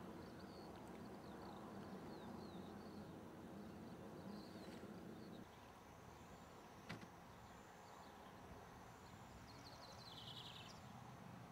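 Near silence: faint open-air background with small birds chirping now and then, more of them near the end. A low hum stops about five seconds in, and there is one soft tick at about seven seconds.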